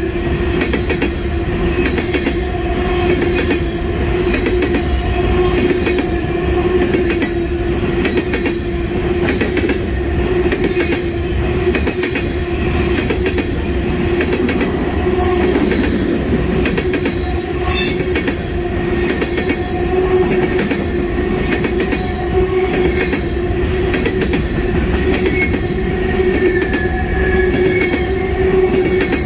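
Loaded oil-train tank cars rolling past close by: a steady rumble of wheels on rail with clickety-clack over the rail joints and a steady whining tone under it.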